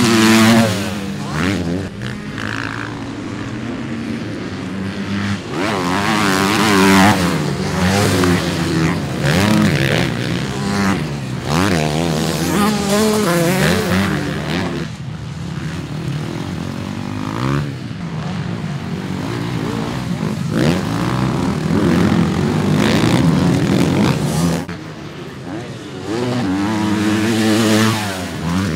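Motocross dirt bike engines revving hard and dropping off again and again as riders accelerate out of corners and over jumps, the pitch rising and falling many times.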